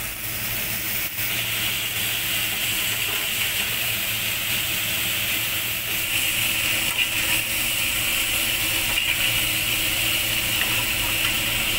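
Julienned potato, pointed gourd and tomato sizzling steadily in hot oil in a kadai, stirred with a spatula that scrapes the pan now and then. The sizzle grows a little louder about halfway through.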